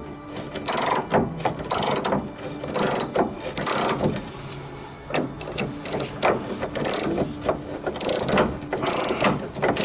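A hand tool working a rusted gas-tank strap nut back and forth, with repeated metallic clicking and grinding strokes at an uneven pace as the seized threads jam and give.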